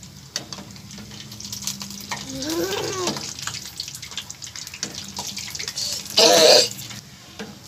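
Pakoras frying in hot oil in a karahi: a steady hiss full of small crackles. A short rising-and-falling call comes about two and a half seconds in, and a brief loud cry a little after six seconds is the loudest sound.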